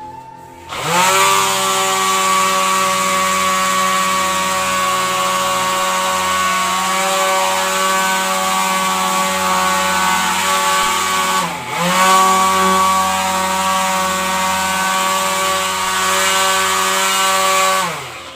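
Small electric motor whining. It spins up about a second in, runs at a steady speed, slows and spins back up near the middle, then winds down near the end.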